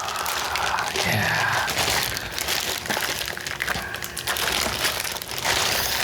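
Packaging being handled: continuous crinkling and rustling, with a short low vocal grunt about a second in.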